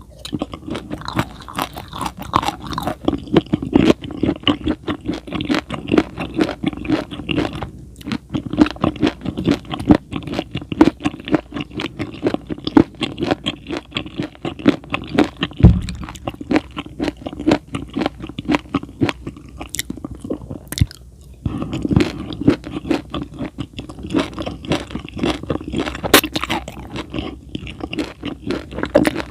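Close-miked chewing with dense, rapid crunching clicks and wet mouth sounds, with two brief pauses and a single low thump about halfway through.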